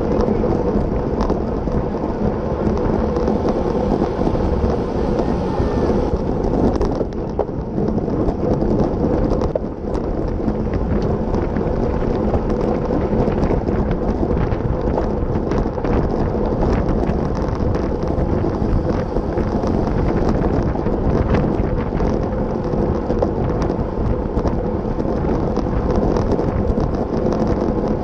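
Wind buffeting the microphone of an action camera riding on a road bicycle at racing speed: a steady, dense rumble.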